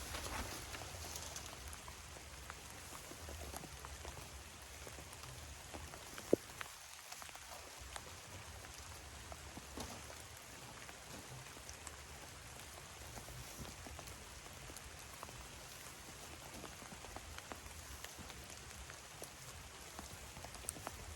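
Steady rain falling, with many small drop ticks through it, and a single sharp tap about six seconds in.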